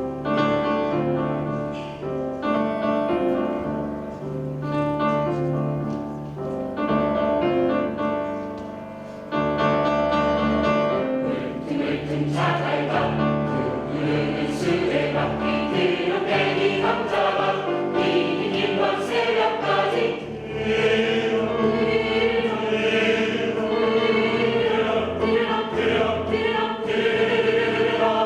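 Choir singing in harmony: long held chords at first, then quicker moving notes from about twelve seconds in, ending on a long held note.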